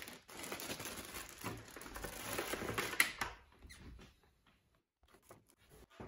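Rustling and handling noise as a computer keyboard and its plastic packaging are moved and set down, with a sharp click about three seconds in. It dies away after about four seconds, leaving a few faint taps.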